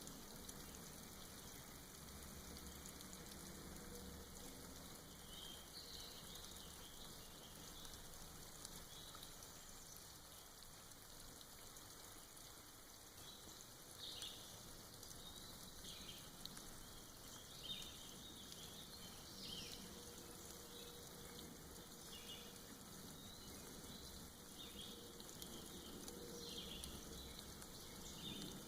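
Faint, soft rain dripping and pattering off moss in a forest, with scattered brief high bird chirps.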